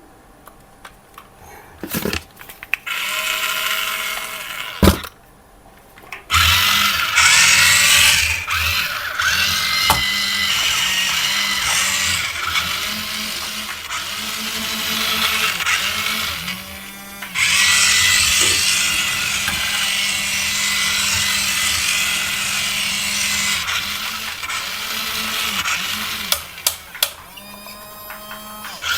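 Small electric motors and plastic gearboxes of a radio-controlled toy construction vehicle whirring. They start about three seconds in, stop with a click, start again, dip briefly about halfway through, then run on until shortly before the end.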